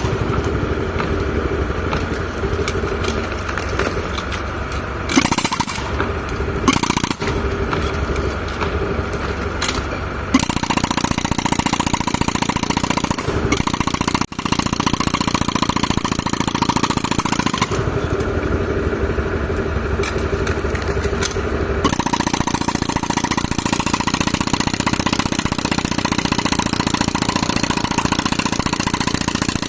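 Tractor engine running an air compressor for rock breaking, with no break. Its sound shifts several times between a duller, low-heavy running and a brighter, busier one, around 10 s in and again around 22 s in.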